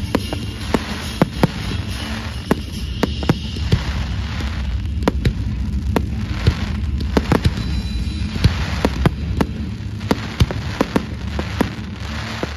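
Fireworks display going off in a rapid, continuous barrage: many sharp bangs and crackles, several a second, over a steady low rumble.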